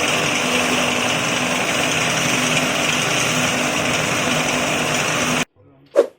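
KM BR03 bread-crumb grinding machine running with a steady mechanical noise, cutting off abruptly about five and a half seconds in. A single sharp knock follows just before the end.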